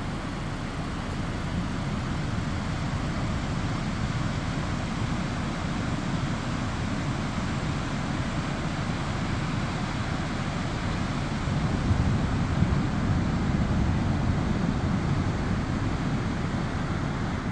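Steady rush of ocean surf breaking on a sandy beach, with a heavy wind rumble on the microphone; it gets a little louder about two-thirds of the way through.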